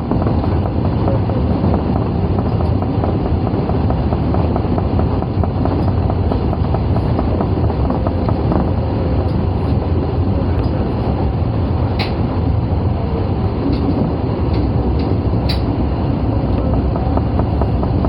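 Osaka Metro 22 series subway train running steadily, a continuous low rumble of wheels on rail heard from inside the leading car, with a couple of short sharp clicks in the second half.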